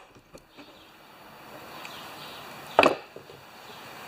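A single sharp knock of a hard object striking a surface about three seconds in, with a couple of faint clicks earlier, over a low background hiss.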